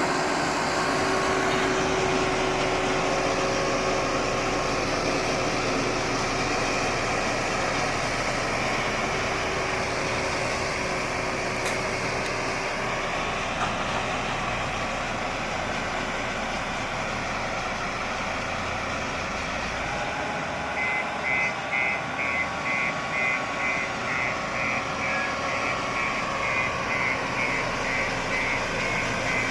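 Heavy construction machine's diesel engine running steadily. About two-thirds of the way through, a reversing alarm starts beeping repeatedly over the engine.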